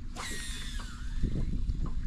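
Fishing reel on a cast: the spool whirs as line pays out, its pitch falling through the first second. Low thumping follows in the second half.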